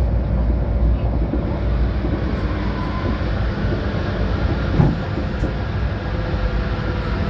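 Passenger train running at speed, heard from inside the carriage: a steady rumble of wheels on rails with a low hum, and a brief knock about five seconds in.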